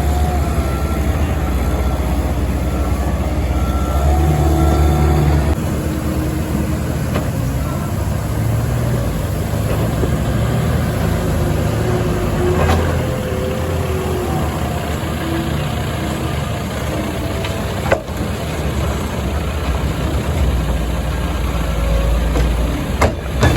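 Caterpillar skid steer's diesel engine running under work, its pitch rising and falling repeatedly as the throttle changes, with a sharp knock about eighteen seconds in.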